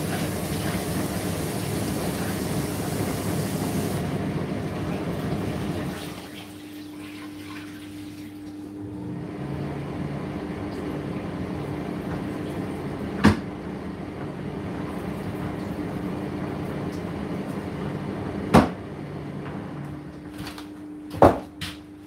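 Indesit IDC8T3 condenser tumble dryer running mid-cycle: the steady drum and fan noise drops off suddenly about six seconds in, leaving a quieter steady hum. A few sharp knocks come in the second half, the last two close together near the end.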